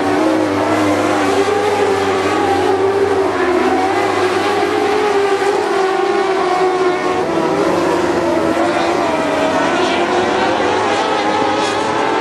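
Dwarf race cars' motorcycle engines running hard on a dirt oval, several cars at once. The engines make a loud, steady din whose pitch keeps rising and falling as the cars accelerate and lift.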